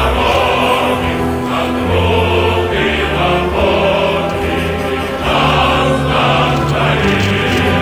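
Background choral music: a choir singing long held notes over a deep bass line.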